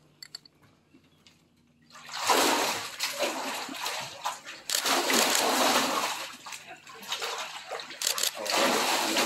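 Water splashing and sloshing in a boat's livewell as a large flathead catfish is grabbed by hand and wrestled up. It starts about two seconds in and comes in repeated bursts.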